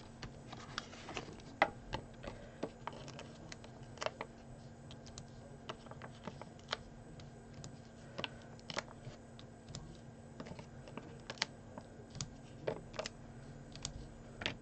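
Quiet, irregular small clicks and taps of card and paper being handled and pressed down on a wooden tabletop as small paper shapes are stuck onto a card label.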